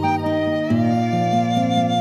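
Background music: a slow instrumental piece with a held melody line over sustained chords.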